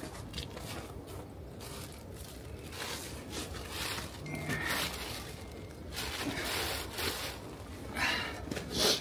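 Footsteps crunching in snow and the rustling of a plastic bag being handled, in irregular short bursts that grow louder near the end.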